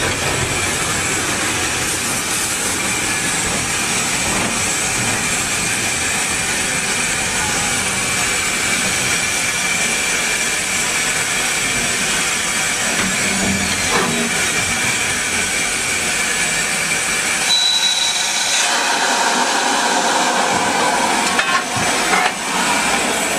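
Steady hiss and running noise of a heritage railway locomotive, heard from inside its cab as the train moves, with a brief thin high tone about three-quarters of the way through.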